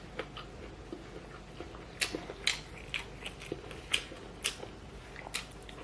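Close-up chewing of food, with a string of short wet mouth clicks and smacks from about two seconds in.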